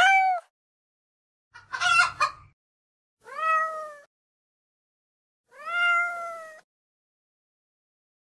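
A cat meows four times, with dead silence between the calls. A short meow comes at the start, a rough, broken one about two seconds in, then two longer, drawn-out meows around three and a half and six seconds in.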